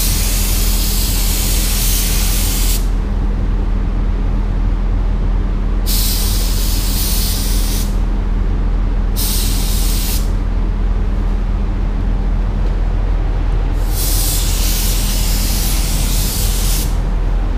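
DeVilbiss GTi gravity-feed spray gun spraying primer: its air hisses in four separate spells as the trigger is pulled and let go. A steady low hum runs underneath.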